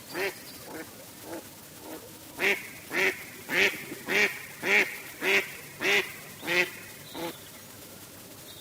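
Duck quacking: a few softer quacks, then a run of about nine loud quacks at a steady pace of nearly two a second, stopping about seven seconds in.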